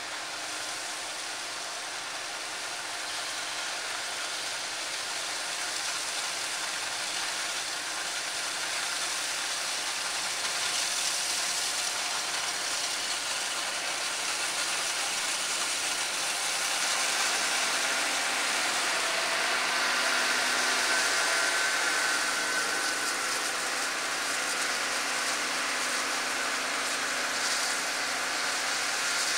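Harvest machinery running steadily: a continuous mechanical rush with faint whining tones that grows a little louder over the first ten seconds or so.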